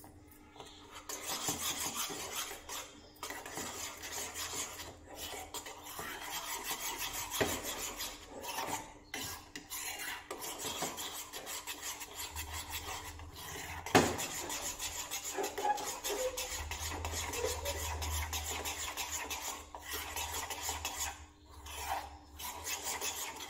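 Metal spoon stirring and scraping a cooking coconut milk, sugar and cornflour mixture around a pan, a rapid continuous scraping with a few short pauses. One sharp knock about 14 seconds in.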